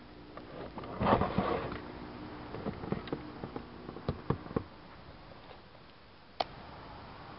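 Handling noises from unboxing new football boots. A burst of rustling comes about a second in, then a run of light taps and clicks, and one sharp click near the end.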